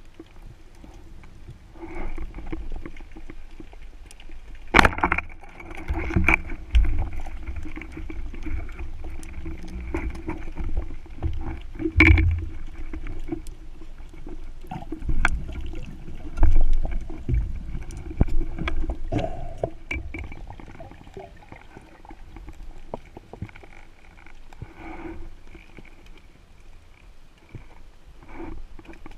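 Underwater sound picked up through a camera housing: a low rumble of moving water that swells and fades, with scattered sharp clicks and knocks.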